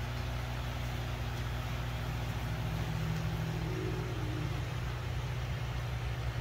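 Aquarium equipment running: a steady low electrical hum with a constant hiss behind it.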